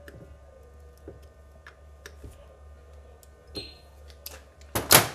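Scattered light clicks of a hand tool working the centre hub bolts of the Agni motor's armature as they are loosened, then one loud clatter near the end.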